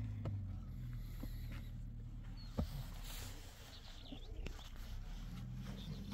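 Scattered light knocks and scrapes of hands working loose soil and setting hollow concrete blocks.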